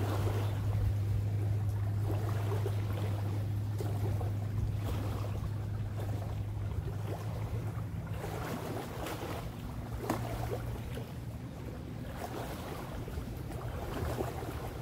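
A motorboat's engine on the lake drones as a steady low hum that slowly fades, under small lake waves lapping the shore in swells every couple of seconds, with some wind.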